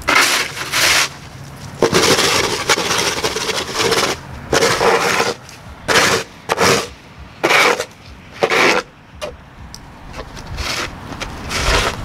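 Snow shovel scraping snow and slush across a concrete sidewalk: a series of rough scrapes, one long push about two seconds in, then fewer and quieter strokes after about nine seconds.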